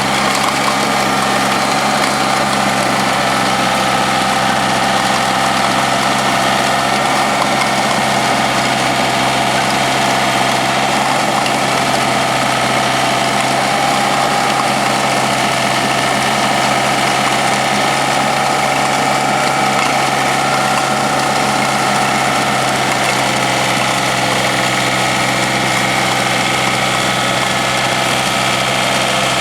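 1986 John Deere 856 tractor engine running at a steady speed, a continuous even drone with no break or change in level.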